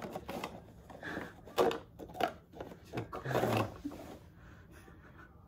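Light, irregular taps, knocks and scuffs of paper cups as a cat steps into and across rows of them standing on the floor.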